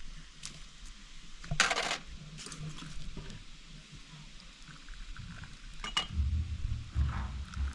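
Clinks and knocks of small glass tea glasses and a metal teapot against a metal tray as tea is poured, with a louder rattle about a second and a half in and a short ringing clink of glass near the end. A low rumble comes in during the last second or so.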